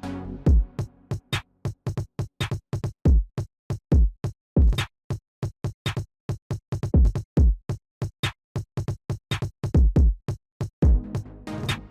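Background electronic music with a drum-machine beat: deep kick drums and quick, evenly spaced percussive hits.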